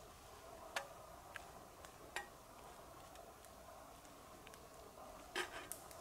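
Faint steady hiss with a few sharp clicks or snaps, about a second in, two seconds in, and a louder pair near the end.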